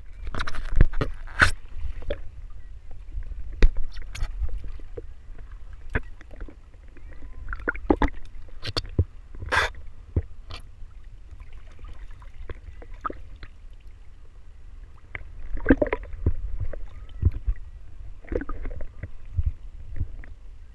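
Sea water sloshing and splashing against a waterproof action camera housing held at the surface, with a steady low rumble and many scattered sharp splashes and knocks.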